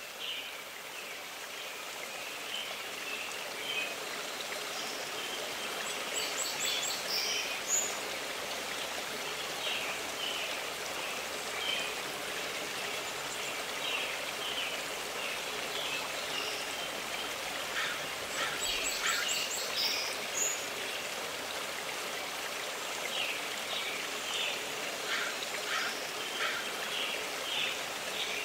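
A steady rush of running stream water, with songbirds chirping and singing over it throughout. A high, rapid trill comes twice, about a quarter of the way in and again about two-thirds in.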